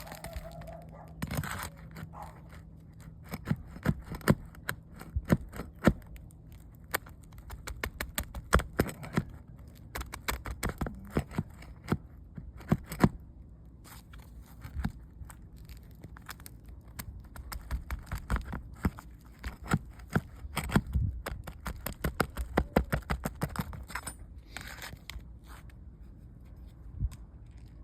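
Irregular scraping, tearing and sharp clicks as roof shingles are worked loose, coming in busy clusters with short lulls between.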